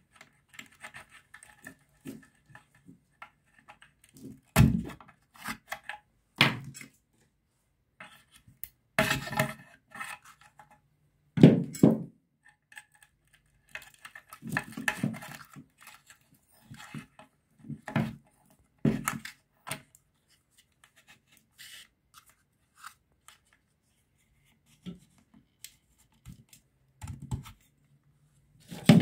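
Handling noises from wiring the terminal box of an electric water pump motor: scattered knocks and thunks as the cable and wires bump the plastic casing, with scrapes and rustles of wire between them, two of the knocks louder than the rest.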